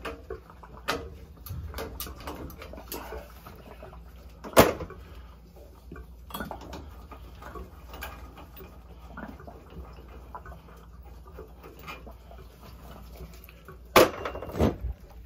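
Metal hand tools clinking and knocking on the flange bolts of a cast-iron circulator pump as they are loosened. Scattered clicks, with a loud clank about four and a half seconds in and a burst of clanks near the end, over a steady low hum.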